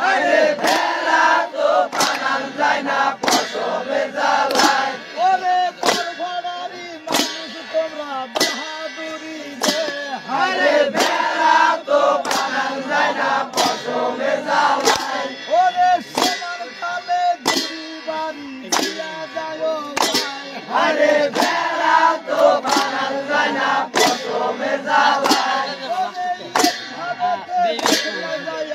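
Men singing a rhythmic boat-racing chant together, with a metallic clang struck about once a second to keep the beat.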